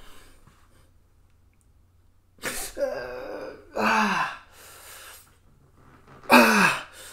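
A man's loud wordless vocal exclamations: three short breathy shouts, each falling in pitch, the first about two and a half seconds in and the last near the end.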